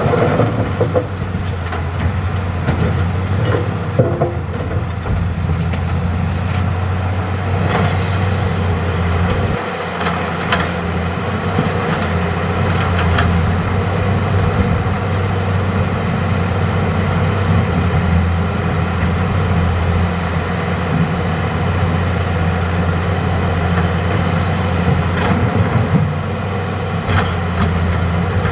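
Hitachi hydraulic excavator's diesel engine running steadily at working speed, with scattered short knocks and clatter through it.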